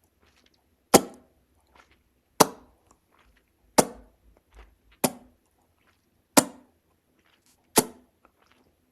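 Loud mouth pops made by sucking the cheeks in and popping the pursed lips open, like a fish blowing bubbles. Six sharp pops come evenly, about one every second and a half.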